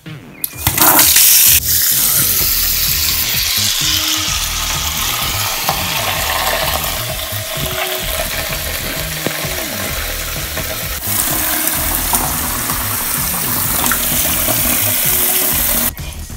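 Tap water running into a ceramic bathroom sink, a steady splashing rush as the basin fills. It starts about a second in and cuts off near the end when the tap is turned off.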